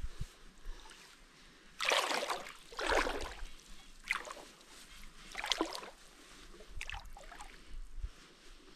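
A person wading through shallow creek water, a slosh and swish of water with each stride, about five strides a second or so apart.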